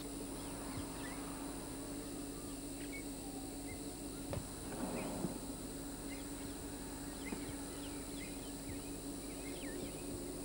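Open-grassland ambience: small birds chirping here and there over a steady high hiss and a low hum, with a brief low rumble about five seconds in.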